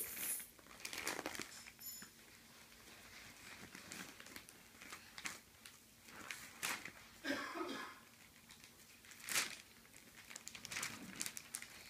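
Paper magazine pages rustling and crinkling in short, scattered spells as a toddler's hands grab and flip them.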